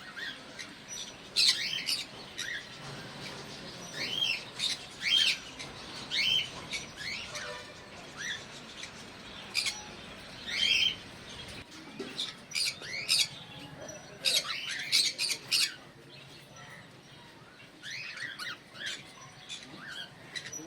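Small pet parrots chirping and squawking in many short, sharp calls, thickest about two-thirds of the way through.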